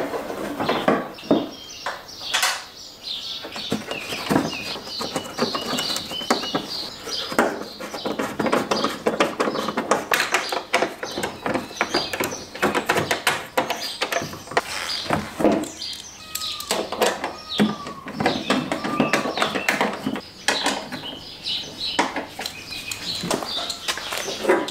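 Busy clicking, tapping and knocking of hands working a fender panel on a car, with birds chirping in the background.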